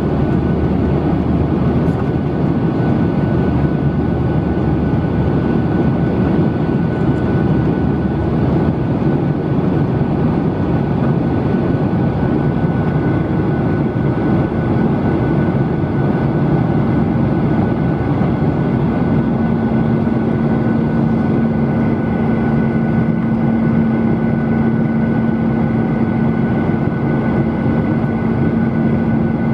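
Steady roar of a Boeing 737-800 in flight, heard inside the cabin beside the wing: CFM56-7B turbofan and airflow noise with a thin high whine. A low steady hum joins about two-thirds of the way through.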